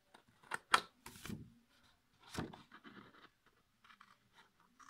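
Small scissors snipping through thin paper, a few separate snips with some paper rustling between them.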